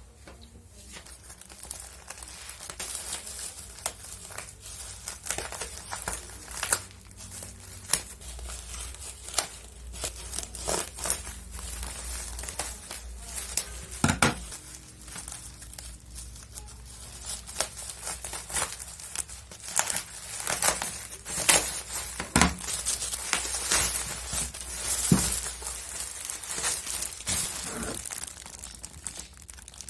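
Parcel packaging being crinkled and torn open by hand: a run of irregular crackling and rustling with occasional sharper snaps, the loudest about two-thirds of the way in.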